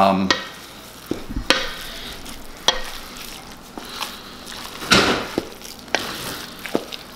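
Wooden spatula stirring a wet ground-beef meatloaf mixture with diced tomatoes and sweated vegetables in a stainless steel bowl: squishing and scraping, with several sharp knocks of the spatula against the steel, the loudest about five seconds in.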